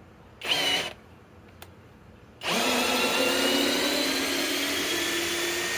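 Cordless hammer drill backing out a 6-inch lag screw: a short blip about half a second in, then the motor runs steadily under load from about two and a half seconds in, its whine sagging slightly in pitch as it works.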